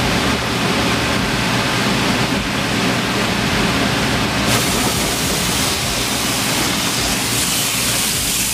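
Steady rush of running water from a hose; about halfway through a brighter, hissing spray joins as water is jetted over a freshly cut yellowtail to flush out its blood.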